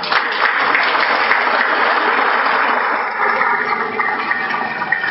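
Audience applauding, a dense clapping that thins out after about three seconds.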